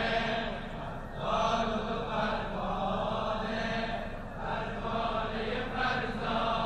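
Noha, a Persian Shia mourning lament, chanted by male voices in a slow run of sung phrases.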